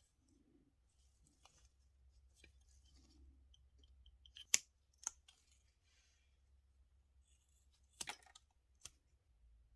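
Small metal and plastic parts and hand tools being handled on a workbench: faint scraping with a few sharp clicks, the loudest about halfway through and again near the end.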